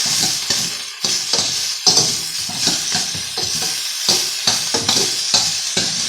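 Chicken pieces sizzling as they fry in a pan, with a utensil stirring, scraping and knocking against the pan.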